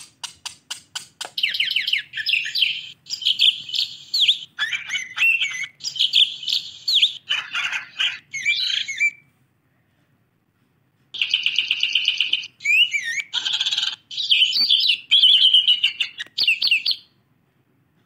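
Budgerigar chirping and warbling in fast high chatter, in two runs with a pause of about two seconds between them, after a few light clicks at the start.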